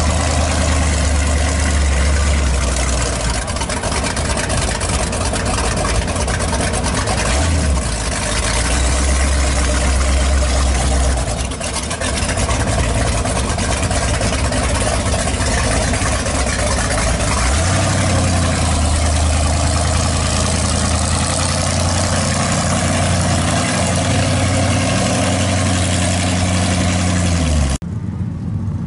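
1958 Ford pickup's engine idling and creeping along at low revs, its deep low note stepping up and down a few times as the throttle changes. The sound drops off abruptly near the end.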